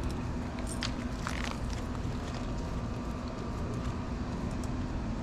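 Steady outdoor background rumble with a constant low hum and a few faint light clicks.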